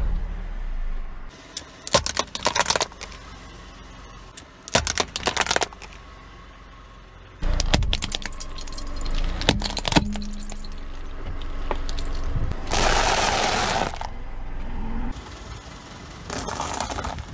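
A car tyre rolling over and crushing small objects, heard as a string of separate bursts of cracking and crackling. The objects include squeezed toothpaste tubes, a plastic Rubik's cube and, near the end, a pile of M&M's candies cracking under the tyre. A low rumble sits under some of the crushes.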